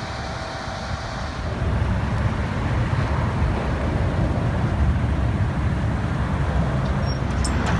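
Steady low rumble of road traffic and nearby vehicles on the highway, getting louder about a second and a half in.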